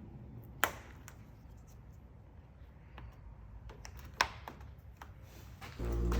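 Sharp clicks and light taps of small parts being pressed into a car door by hand, two of them louder, about a second in and about four seconds in. Music with a strong bass starts just before the end.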